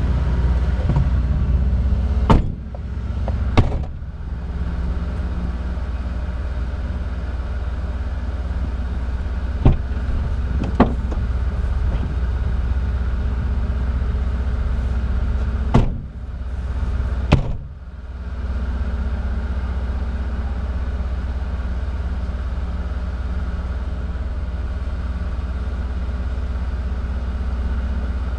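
Engine idling steadily, heard from inside the parked vehicle's cab. Several sharp clunks come over the hum: a pair about two seconds in, two lighter ones near the middle, and another pair around sixteen seconds in, each pair about a second and a half apart.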